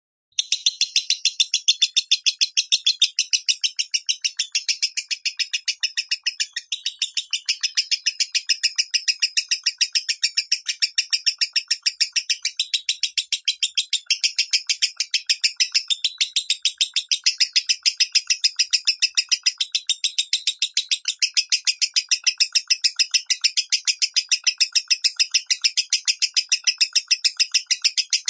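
Lovebird singing in the low, rough 'minor' voice: a continuous run of rapid, harsh chirps several per second, starting abruptly just after the beginning and going on without a break.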